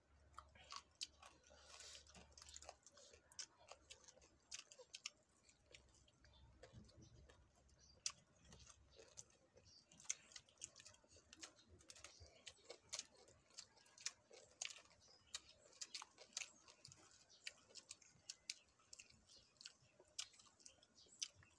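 Faint chewing of papaya salad and raw greens, with irregular small crunches, clicks and lip smacks.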